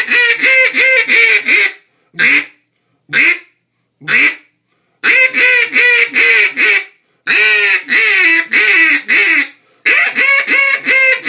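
Single-reed acrylic timber duck call blown in mallard-hen style quacks: a fast run of quacks, three single quacks, then three more runs of rapid quacks, one of them falling in pitch.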